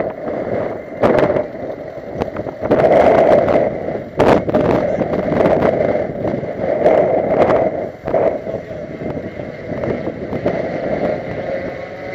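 Car on the move: a loud, steady rush of road and wind noise that swells and dips, with a few sharp knocks.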